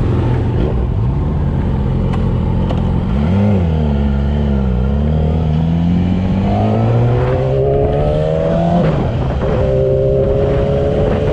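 Inline-four sport motorcycle engine under acceleration, its pitch climbing steadily, dropping suddenly about nine seconds in at an upshift and climbing again, over steady wind rush at highway speed.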